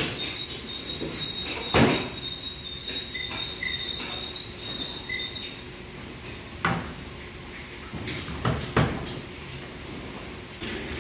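Kitchen prep knocks: slices of breaded chicken roll set down into a stainless steel pan, then a chef's knife cutting through a breaded roll and knocking onto a plastic cutting board, a few sharp knocks in the second half. Under them runs a steady background hum with a high whine that stops about halfway through.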